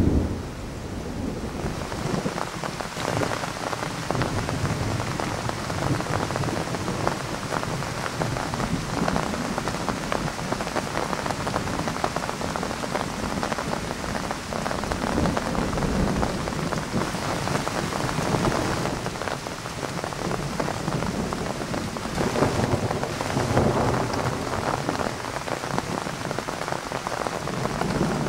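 Thunderstorm: heavy rain falling steadily, with thunder rumbling again and again beneath it. A loud thunderclap peaks right at the start, and the rain grows heavier about two seconds in.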